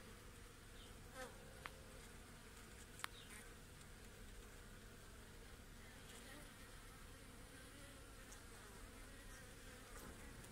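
Honey bees on a hive frame buzzing faintly and steadily: the massed hum of many wings. Two short sharp clicks, about one and a half and three seconds in.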